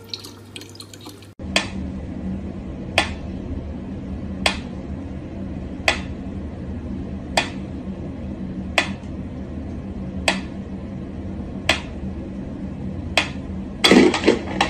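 Water running from a tap for about a second, then a mechanical pyramid metronome ticking slowly, about one sharp tick every second and a half. A louder jumble of noise comes near the end.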